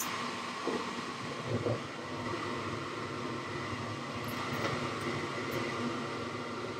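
Gas furnace lighting off: the induced-draft blower runs steadily, a sharp click comes as the gas valve opens, and the burners catch with two short whooshes within the first two seconds, then burn steadily. The valve is installed backwards, so the burners fire at a low manifold pressure of about 2.1 inches water column instead of about 3.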